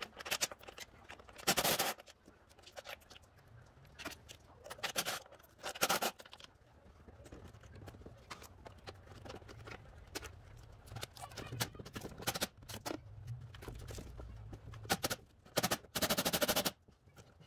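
Ratchet wrench clicking in short rapid runs as 12 mm intake-manifold bolts are backed out, with scattered clinks of tool and hardware between. There are runs about a second and a half in and again around five seconds in, and a longer one near the end.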